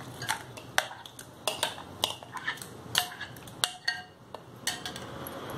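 Metal spoon clinking and scraping against glass bowls as soft fruit pulp is scraped from one bowl into another: a dozen or so irregular sharp clinks, a few ringing briefly.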